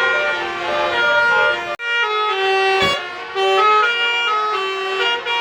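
Bus telolet basuri horn playing a tune of held notes stepping up and down in pitch. The sound drops out for an instant just before two seconds in, then the tune carries on.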